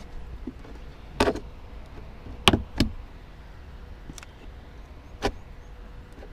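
Sharp plastic clicks and snaps as a plastic trim removal tool pries at the lower edge of a Seat Leon Mk3 rear door trim panel: a short cluster, a loud pair about a third of a second apart, and a single click near the end, over a low steady rumble.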